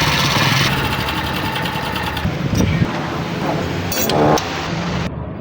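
Motorcycle engine running with a fast, even mechanical clatter: the abnormal engine noise that is the fault being diagnosed.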